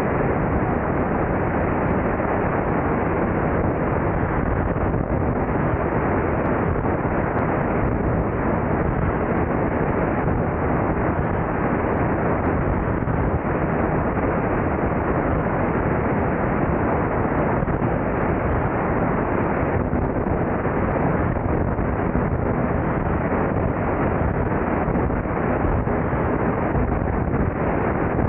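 Steady rush of wind over a camera mounted outside a Beechcraft 35-B33 Debonair in flight, mixed with the plane's engine and propeller noise. The level holds even throughout.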